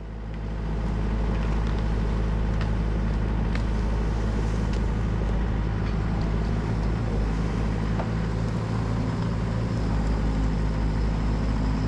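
Diesel engine of heavy construction equipment, a skid steer or excavator, running steadily under work, with a few light clicks.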